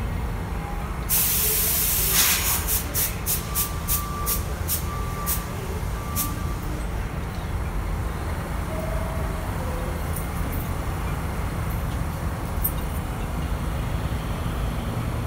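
R62A subway train standing at the platform lets out a loud burst of compressed-air hiss about a second in, then a run of short, evenly spaced hisses, about three a second, for several seconds. Three faint short beeps sound in the middle, over a steady low rumble from the train.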